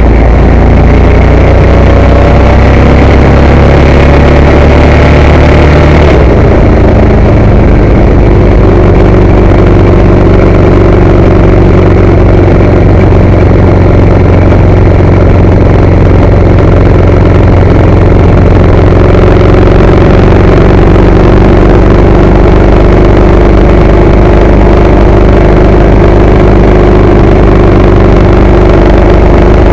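Ducati 916's L-twin engine pulling at road speed, its pitch rising for the first six seconds until an abrupt change, then holding steady. Heavy wind rumble on the microphone.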